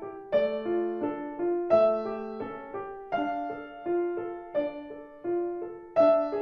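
Solo piano playing a light, simple piece at an even pace: a right-hand melody over a left-hand accompaniment of repeated broken-chord eighth notes, each note struck and left to ring.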